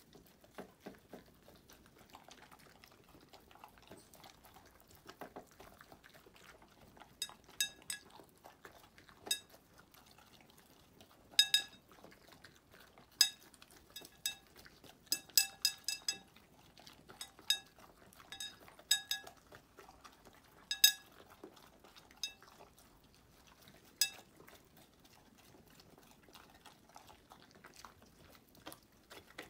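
Ceramic plates clinking and ringing as two dogs, a golden retriever and a small curly-coated dog, eat off them, knocking the plates with muzzles and teeth. The clinks are scattered and come thickest through the middle, over quiet eating noises.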